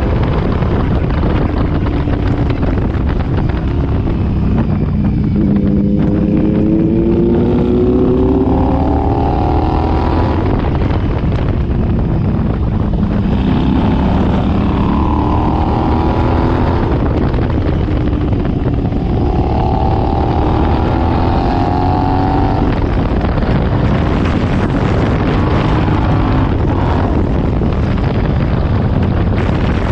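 Royal Enfield Interceptor 650's parallel-twin engine running through an AEW 2-into-1 aftermarket exhaust under hard riding, its revs climbing several times as it pulls through the gears.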